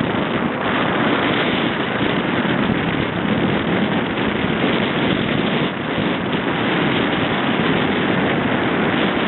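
Steady rush of wind buffeting the microphone aboard a sailing yacht under way, with no clear engine tone.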